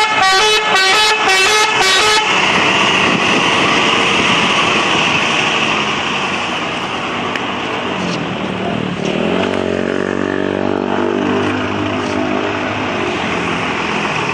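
Bus telolet horn playing a quick tune of changing multi-tone notes for about two seconds. Then a bus engine runs under a steady rush of noise, its note dipping about eight seconds in and climbing again after.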